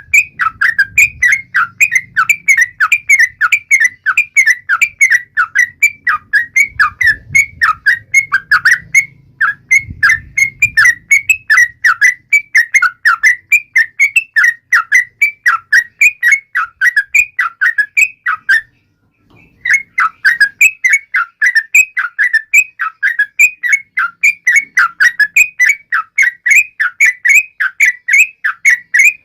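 Yellow-vented bulbul (trucuk) calling in a rapid, even string of short chattering notes, about four a second, breaking off for about a second roughly two-thirds of the way through.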